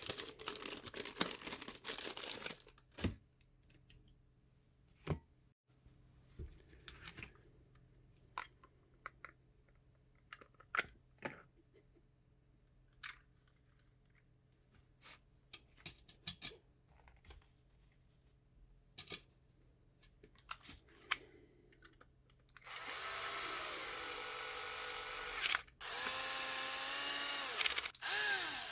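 Crinkling, then scattered light clicks and taps of parts being handled, then a small power tool's motor whirring in two runs from about 23 s with a brief stop between them, its whine shifting in pitch, typical of driving screws.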